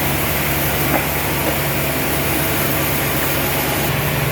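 Sawmill machinery running steadily: a loud, even mechanical drone with a constant low hum and hiss, its tone shifting slightly near the end.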